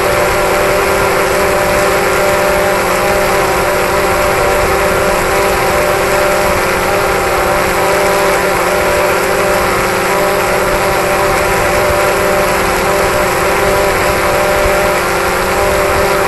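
DJI Phantom 3 quadcopter hovering: its four motors and propellers give a steady whine that does not change pitch, over a rush of downwash, heard loud and close from a camera hung directly beneath the drone.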